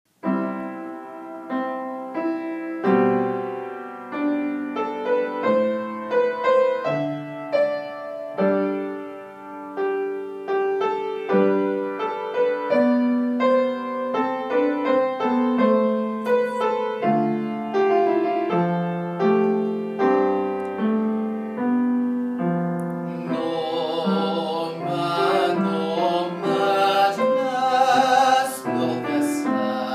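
Piano playing a slow introduction of single notes and chords, then a man's solo singing voice with vibrato joins in over it about three-quarters of the way through.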